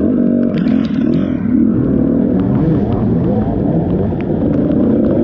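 Dirt bike engine revving up and down with the throttle, its pitch rising and falling, with scattered short sharp clicks and knocks.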